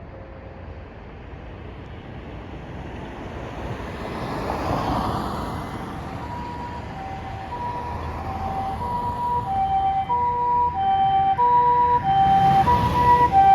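Japanese ambulance's two-tone harmonic siren, alternating a high and a low tone (the 'pee-po' pattern), starting about six seconds in and growing louder as the ambulance comes closer. Before it, vehicle and road noise swells.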